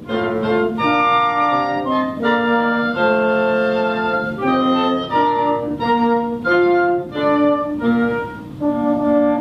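Instrumental music: wind instruments playing a slow sequence of held chords that change about once a second.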